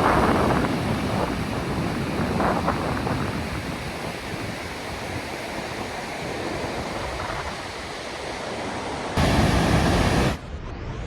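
Steady outdoor rushing noise, with no clear tones. About nine seconds in it turns louder for about a second, then cuts off suddenly.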